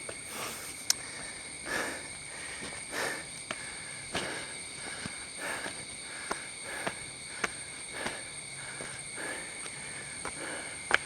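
A steady, high-pitched insect drone from the rainforest. Over it, a hiker's footsteps on the trail come about once a second, with a few sharp ticks between them.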